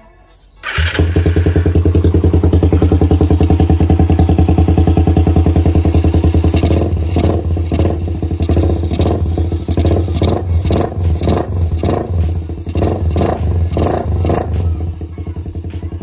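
Suzuki Raider 150's single-cylinder four-stroke engine, with a newly fitted ram-air intake and an aftermarket titanium exhaust, catching on the electric starter under a second in and idling steadily. From about halfway through it is blipped repeatedly with the throttle in short revs, then settles back to idle near the end.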